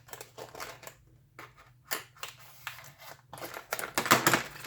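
Retail packaging of step drill bits being cut and pulled open by hand: a string of irregular crackles and scrapes, loudest about four seconds in.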